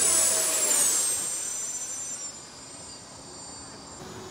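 Electric ducted-fan jet of a Freewing L-39 model whining as it flies past, the whine dropping in pitch and fading away over about two seconds.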